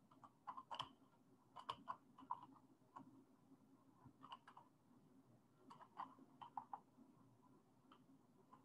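Faint computer keyboard typing: short clusters of key clicks with pauses between them.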